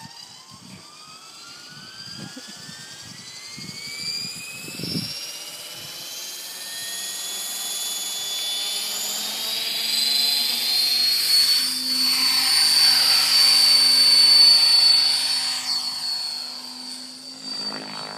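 Mikado Logo 800 electric radio-controlled helicopter spooling up, its motor and rotor whine rising steadily in pitch for about ten seconds. It then runs loud at full head speed as it lifts off, and eases a little near the end as it climbs away.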